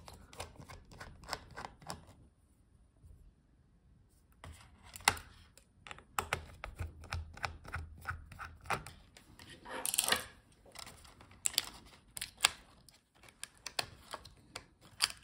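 Small, irregular clicks and taps of a precision screwdriver backing out the tiny screws that hold a Lenovo ThinkPad X13 Gen 2 motherboard in its case, mixed with light clatter as the board and parts are handled. There is a short pause about two seconds in.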